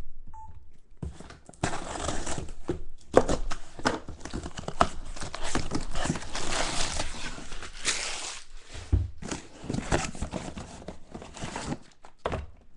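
Plastic wrapping and cardboard packaging crinkling and tearing as a sealed trading-card box is opened, with many quick crackles and sharp clicks.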